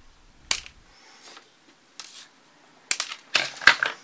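Scissors snip black monofilament snood line once, about half a second in. A quick run of clicks and knocks follows near the end.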